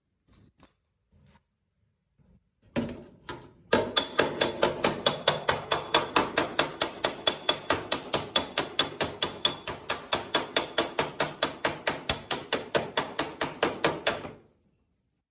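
A hammer striking a sheet-steel door panel in a fast, steady run of ringing metallic blows, about five a second, for some ten seconds after a few scattered knocks.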